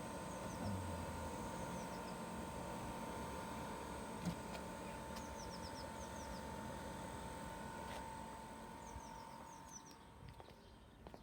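Diesel air heater's fan running with a steady hum and a high whine, its fuel pump not ticking, so the heater is not firing. Small birds chirp in quick descending runs over it, and the hum fades about ten seconds in.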